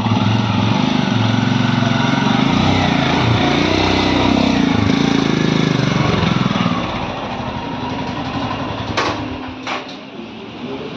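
Royal Enfield Himalayan Scram 411's single-cylinder engine running at low speed, then fading out about seven seconds in. A few sharp knocks follow near the end.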